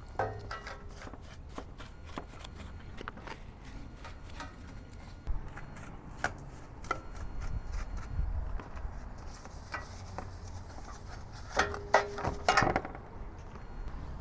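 A soft paintbrush scrubbing and dabbing soapy cleaner over a CRT monitor's yoke and sheet-metal frame: scratchy bristle strokes and light taps, with a few louder knocks near the end.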